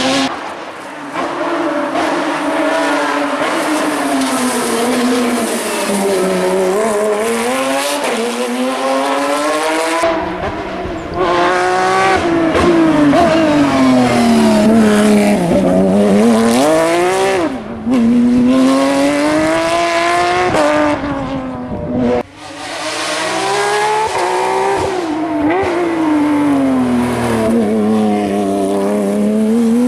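Porsche 911 GT3 Cup's flat-six racing engine at full effort, its note repeatedly climbing and dropping as it accelerates, shifts and brakes for corners. The sound breaks off abruptly twice, about a third and two-thirds of the way in.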